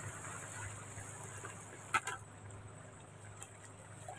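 Faint outdoor background noise with a steady low hum, broken by a short, sharp double click about two seconds in.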